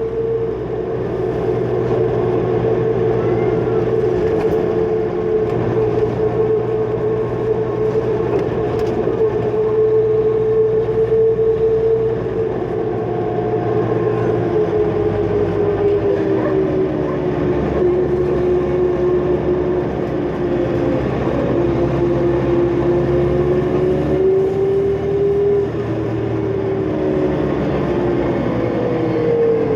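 New Flyer D40LF bus's Cummins ISL diesel engine under way, with a loud steady turbocharger whine that sags lower in pitch past the middle, rises again, then falls near the end. Underneath, the engine's low note shifts in steps several times as the ZF automatic changes gear.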